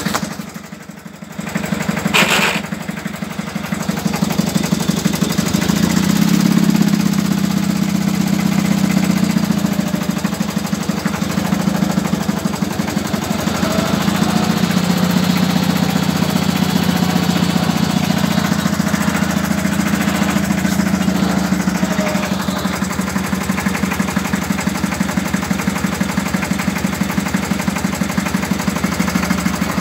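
Coventry Climax forklift's two-cylinder engine running with a fast, even chugging. It is quieter for the first couple of seconds, a sharp click comes about two seconds in, and the engine then runs steadily and louder.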